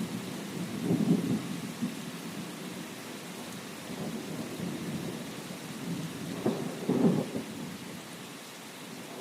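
Steady rain with low rumbles of distant thunder: one swell about a second in and a stronger one around seven seconds, then the rumble dies away.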